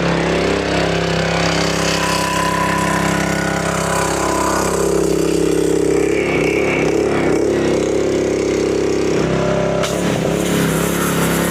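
Gas-engine pressure washer running steadily, blasting water onto mud-caked logs. A high spray hiss grows stronger about ten seconds in.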